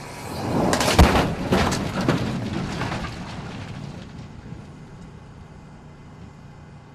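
A four-door pickup truck, ballasted to 5,000 pounds, hitting a concrete New Jersey safety-shape barrier at about 62 mph. There is a sharp crash of impact about a second in, then several more crashes and crunches over the next two seconds as the truck is redirected along the barrier, fading away after that.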